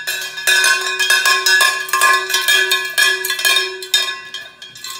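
A cowbell rung rapidly and hard, several strikes a second with a metallic ring, stopping near the end.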